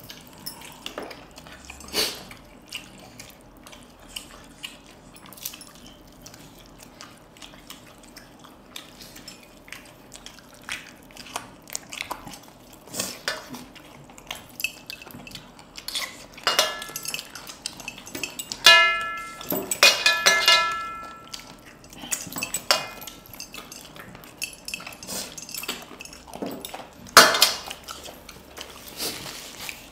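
Eating by hand from large stainless steel plates: fingers and metal finger rings clink and scrape against the steel in many small clicks. A little past the middle come several louder clinks that leave the plate ringing briefly.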